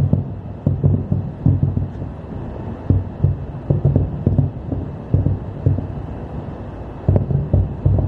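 Fireworks booming, heard as a rapid, irregular run of dull low thumps, several a second, with a short lull around the middle.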